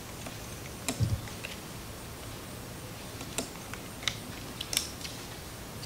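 A few light plastic clicks and taps as a wiring connector is worked onto the plastic housing of a BMW 800 GS in-tank fuel pump assembly.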